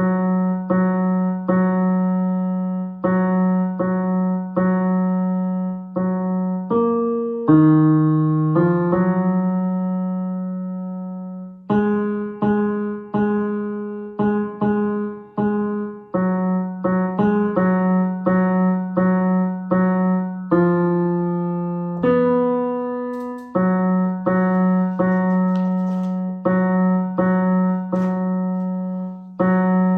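Piano playing a choir's tenor 2 part as a single line of notes, one at a time: mostly short repeated notes, with a few longer held ones.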